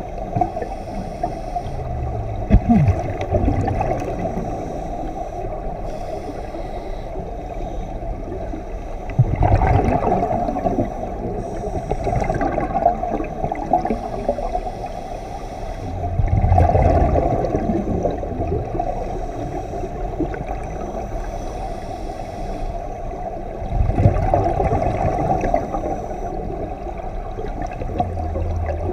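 Underwater sound of scuba breathing: a steady dull low rush, with swells of regulator exhaust bubbles gurgling every several seconds as a diver breathes out.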